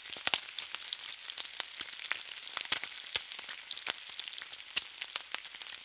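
Food frying in hot oil: a steady sizzle with many scattered crackling pops.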